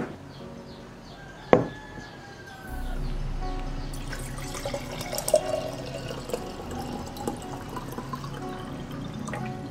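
Water poured from a glass pitcher into a glass mason jar, splashing and filling, over soft background music. A single sharp knock comes about a second and a half in, before the pouring starts.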